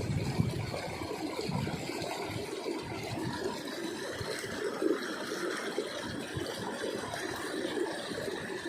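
Steady rushing of fast-flowing water in a drainage channel, an even, unbroken noise.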